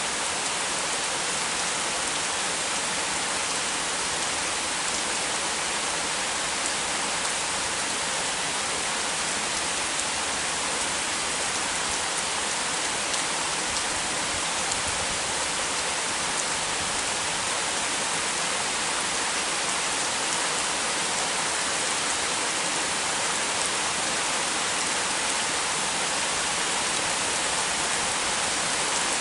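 Heavy shower rain falling steadily, a dense even hiss of drops on surfaces.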